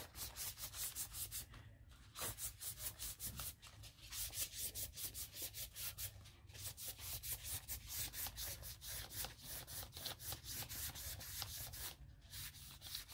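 Rapid, scratchy strokes of a hand-held art tool rubbing on a paper page, about five a second with a few short breaks: hand mark making on a collage page.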